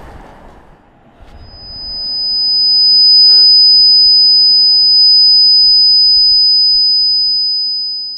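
A single loud, high-pitched ringing tone, an ear-ringing sound effect, swells in over a couple of seconds and then holds steady, over faint outdoor background noise.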